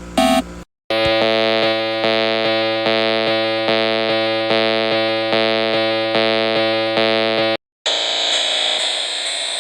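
Synthesized alarm tones of a fake Emergency Alert System alert. A last short beep is followed by a buzzy electronic tone pulsing a little faster than once a second for about seven seconds. It cuts off and a harsh, distorted, noisy sound takes over near the end.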